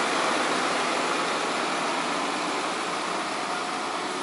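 Mercedes-Benz Axor tractor unit and its heavily loaded lowboy trailer passing close by: a steady mix of diesel engine and tyre noise that fades slightly.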